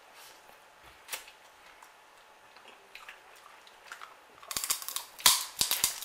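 Close-up eating sounds: a crab leg's shell cracking between the teeth, a quick run of sharp cracks and crunches starting about four and a half seconds in, after a single click about a second in.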